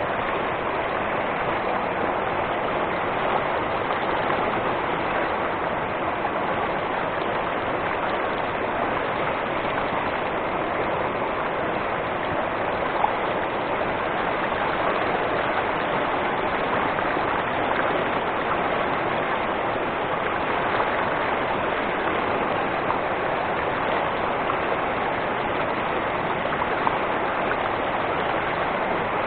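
Steady rushing of falling water from a mountain waterfall or stream, an even hiss that does not change.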